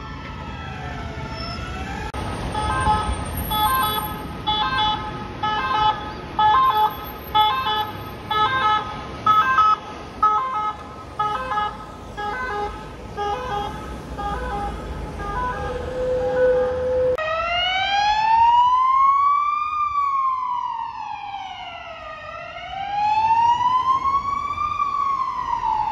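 Emergency vehicle sirens, one after another, over traffic noise. First comes a short siren gliding up and down. Then an ambulance's quick pulsing two-tone siren sounds for about fifteen seconds, and from about two-thirds of the way in a slow wail rises and falls roughly every three seconds.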